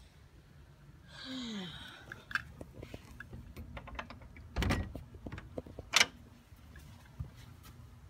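A door opening with a brief falling squeak about a second in, followed by scattered knocks and clicks, a heavier thud, and one sharp click about six seconds in that is the loudest sound.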